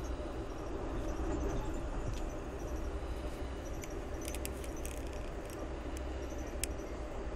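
Steady low rumble of a passenger train running, heard from inside the car. Faint high squeaks repeat throughout, with a cluster of sharp clicks about four to five seconds in and another near the end.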